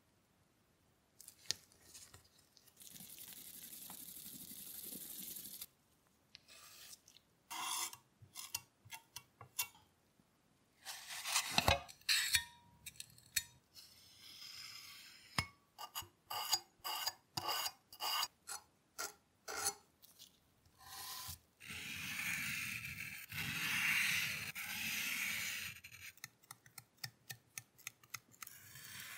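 Two-part J-B Weld epoxy filler being mixed and spread: a plastic spreader and a metal putty knife scraping and smearing the paste over a metal part. It comes as a run of short scrapes with brief pauses, a longer continuous scraping stretch about two-thirds of the way through, and small ticks near the end.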